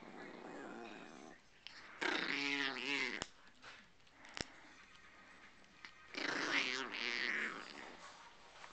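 Chihuahua growling and snarling in two loud bouts, about two seconds in and about six seconds in, with quieter rumbling before and between them: a small dog guarding its pig ear chew.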